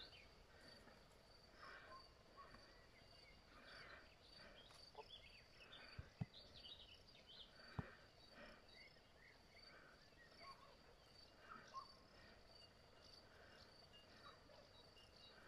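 Faint rural garden ambience: a steady high-pitched insect trill, with scattered distant bird chirps and two sharp clicks near the middle.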